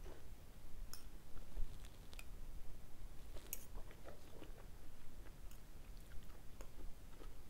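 A person chewing a mouthful of noodle soup with soft, irregular mouth noises, while a metal spoon and fork clink against a ceramic plate a few times, the sharpest clink about three and a half seconds in.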